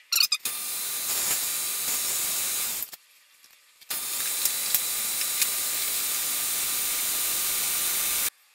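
1952 Logan 920 metal lathe turning a hemlock blank as the tool-post cutter shaves it into cone pulley steps: a steady hiss of cutting with a faint whine, after a few clicks at the start. It stops abruptly about three seconds in, starts again a second later, and stops abruptly again just before the end.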